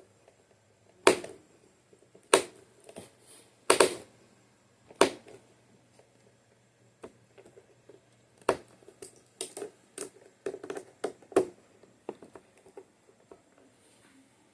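Sharp clicks and light knocks at irregular spacing, loudest in the first five seconds and a quicker cluster later: small hand tools and parts being handled while an iMac is put back together.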